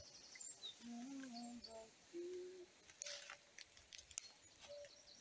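Faint woodland birdsong: scattered short high chirps and a few lower notes, with a brief rustle about three seconds in.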